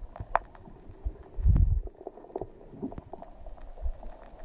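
Underwater water noise from swimmers moving through the sea, heard underwater: a low rumble with scattered sharp clicks and knocks, and one loud, dull thump about a second and a half in.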